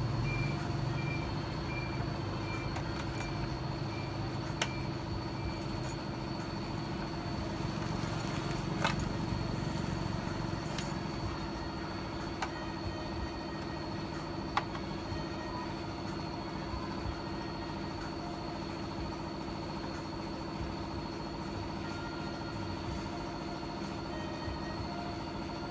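A motor running steadily with a low rumble that eases after about ten seconds, with a short run of regular beeps in the first few seconds and a few sharp clicks.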